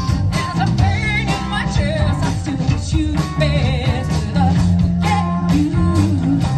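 Band playing an upbeat rock-soul song, with a lead singer over bass, drums and guitar.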